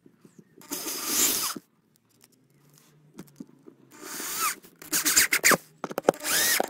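Cordless drill driver driving wood screws through a timber upright into a wooden planter, in four short bursts of a second or less. The motor's whine rises and falls within each burst.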